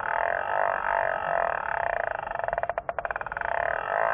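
Fly reel's clicker drag ratcheting in a fast, even run of ticks while a hooked trout is played, stuttering briefly about three seconds in.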